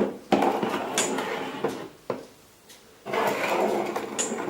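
Small objects being handled and cleared off a table: two stretches of rustling and clatter, with a few sharp clicks or knocks in the first.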